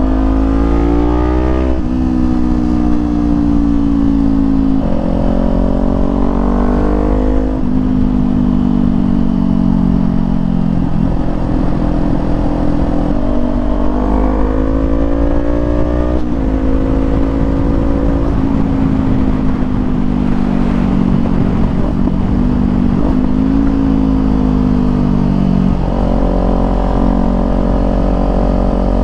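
Motorcycle engine with an aftermarket exhaust accelerating up through the gears. The pitch climbs, then drops sharply at each upshift, several times over. Wind rumbles low and steady under it.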